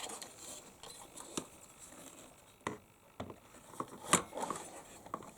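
Irregular light clicks and knocks of a CPU cooler being handled and set into place on the motherboard inside a desktop PC case.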